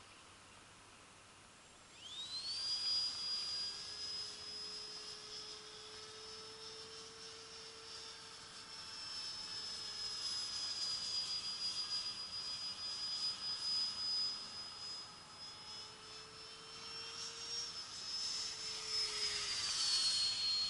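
Electric ducted-fan motor of a radio-controlled model jet, flying overhead. The high whine comes in about two seconds in with a quick rise in pitch, then holds steady. Near the end it is loudest and drops in pitch as the jet passes.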